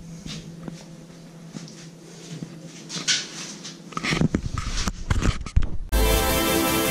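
Knocks, taps and rustles of a handheld action camera being handled and bumped against glass, over a faint steady hum. Background music cuts in abruptly near the end.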